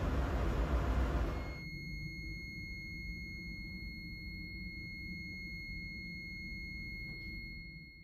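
Loud engine-room machinery noise for about the first second and a half, then the alarm buzzer of a Framo cargo pump control panel sounds as one steady high-pitched tone over a low machinery hum, set off during an alarm test.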